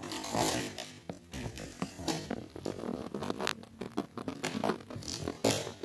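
Cardboard box being handled and opened: uneven scraping and rustling with scattered sharp knocks and clicks.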